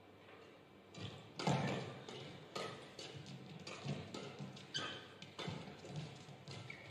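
Badminton rally: rackets striking the shuttlecock in a run of sharp smacks, starting about a second in and coming every half second to a second. Short shoe squeaks on the court floor come between the hits.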